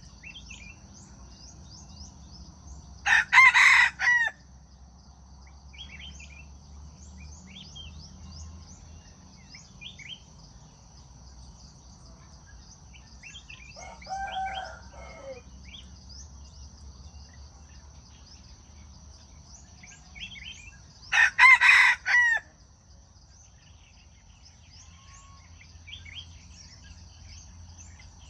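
Jungle fowl rooster crowing twice, each crow short and broken into a few parts, about eighteen seconds apart, with a softer, lower call in between. A steady high insect drone and small bird chirps run underneath.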